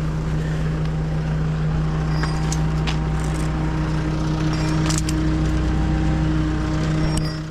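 Hino rollback tow truck's diesel engine running with a steady low hum, a few light clicks over it, fading out at the very end.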